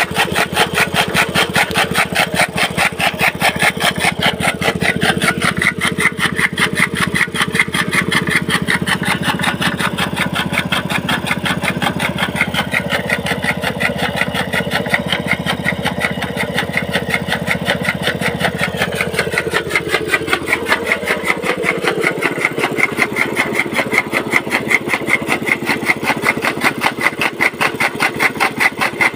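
Small single-cylinder petrol engine driving a flywheel chaff cutter (toka) that is chopping green fodder, running with a steady rapid beat. Its pitch rises a few seconds in and drops clearly about twenty seconds in, then holds steady.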